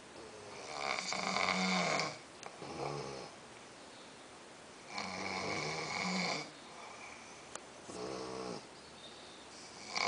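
A man and an English bulldog snoring in their sleep: three loud snores about four to five seconds apart, each followed by a shorter, softer snore.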